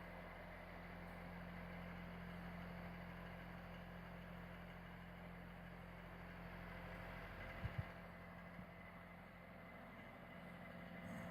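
Saivod FE 10 electric fan running with a faint, steady low hum, with two brief faint clicks about two thirds of the way through.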